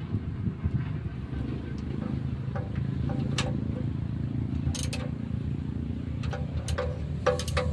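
Small single-cylinder stationary diesel engine running steadily with an even low pulse, while a hand works its lever. A few sharp metallic clicks come over it, most of them near the end.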